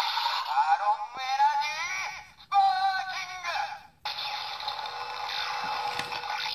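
DX Genesis Driver toy belt with the Marron Energy Lockseed playing its electronic finisher sound after its handle is pushed twice. A heavily processed, sung-sounding voice calls out in two phrases, then about four seconds in a steady electronic effect takes over.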